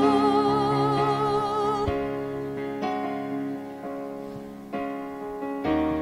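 Gospel worship song: a singer holds one long note with vibrato over sustained electric keyboard chords. The voice stops about two seconds in, the keyboard chords ring on and fade, and a new chord comes in near the end.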